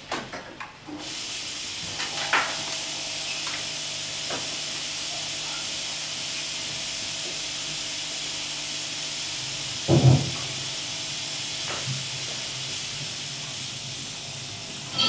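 A steady hiss comes in about a second in and holds, over a faint low hum, with a few light clicks and one louder knock about ten seconds in.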